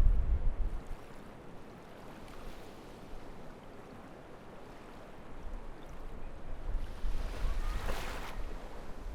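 Strong wind buffeting the microphone with a low rumble that drops away about a second in, over a steady wash of surf. Near the end a wave surges up the beach with a brighter rushing hiss while the wind rumble picks up again.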